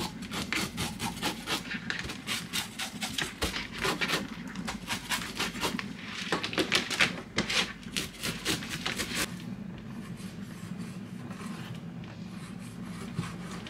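Kitchen knife scraping the scales off a flatfish on a plastic cutting board, in quick repeated strokes about four a second. The scraping stops about nine seconds in, leaving a steady low hum.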